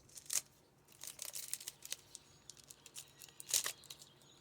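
Intermittent crinkling and crackling of a trading-card pack wrapper being handled, with two louder rustles, one just after the start and one about three and a half seconds in.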